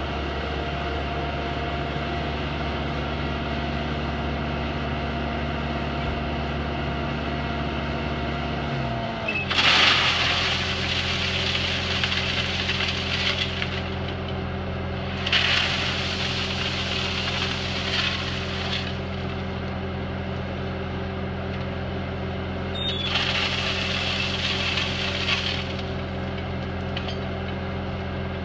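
A diesel engine idling steadily, its speed dropping to a lower idle about nine seconds in. Over it, crushed stone rushes and rattles out of a tipped dump body into a skid-steer bucket three times, each for a few seconds.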